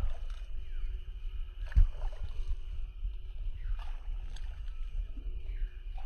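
Wind buffeting the microphone as a steady low rumble, with a few sharp knocks, the loudest about two seconds in, and faint bird chirps.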